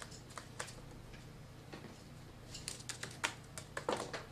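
Light clicks and taps from a parakeet's beak and feet on plastic darts in a toy dartboard and on the tabletop. A few scattered clicks at first, coming thicker about two and a half seconds in.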